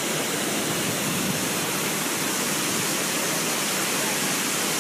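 A waterfall and the stream below it, water rushing in a steady, even hiss with no change throughout.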